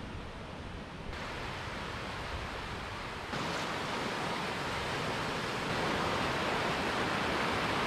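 Surf breaking and washing onto a sandy beach, a steady rush of waves that grows louder about three seconds in.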